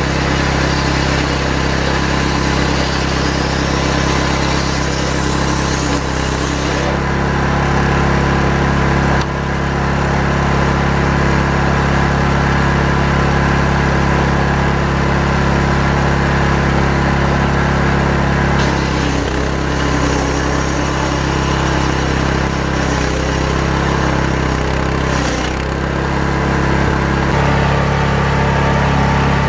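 Engine of a powered saw running steadily while ripping timber, its note shifting a few times as the load changes.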